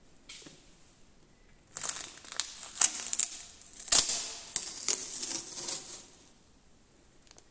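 Masking tape being peeled off a freshly painted surface: a crackly ripping in several quick pulls that starts about two seconds in and dies away about two seconds before the end.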